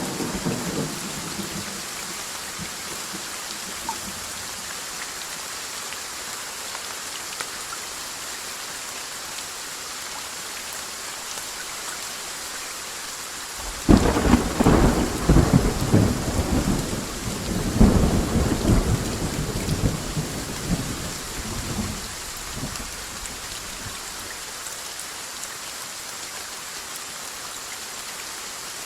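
Steady rain falling, with the end of a thunder rumble fading out at the start. About halfway through a sudden loud thunderclap breaks and rolls on in uneven rumbles for several seconds before dying away under the rain.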